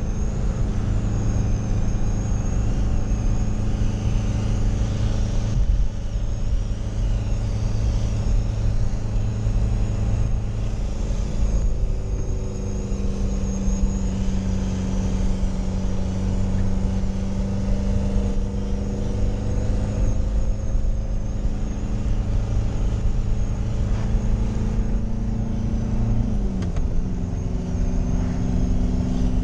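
Fiat Ducato camper van's engine running hard under way, heard from inside the cab over road and wind noise. The engine note holds steady, then drops near the end as the revs fall.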